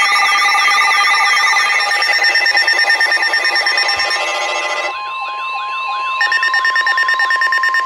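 Several weather alert radios sounding their alarms at once: warbling siren-like tones over steady beeps. From about five seconds in, the steady NOAA Weather Radio warning alarm tone joins them, marking a warning broadcast.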